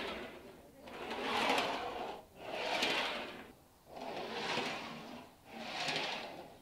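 Homemade swim-training bench trolley rolling back and forth on its metal rails, a swell of rolling, rubbing noise about every second and a half in a steady rhythm.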